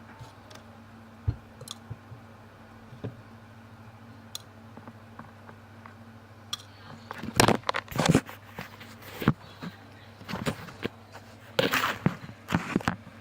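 Slime being worked by hand: a few light clicks at first, then from about halfway a dense run of sharp crackling pops.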